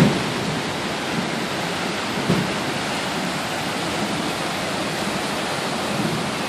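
Floodwater rushing down a swollen creek, a steady unbroken rush, with a couple of brief low thumps, one right at the start and one about two seconds in.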